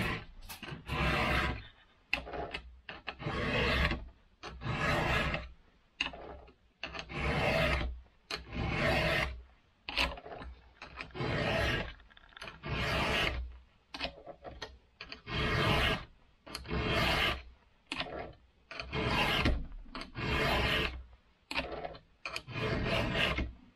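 Chainsaw file rasping across the steel cutter teeth of a saw chain held in a vise, in repeated push strokes about once a second, with a few slightly longer pauses.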